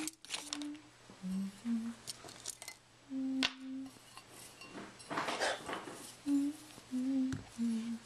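A person humming a slow tune in short, separate notes, with light clicks and clinks of tea things being handled, and a brief rustle about five seconds in.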